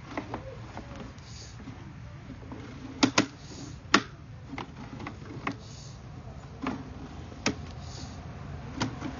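Sewer inspection camera push cable and reel being pulled back, giving sharp, irregular clicks and knocks, about seven or eight in all and loudest around three to four seconds in, over a low steady hum.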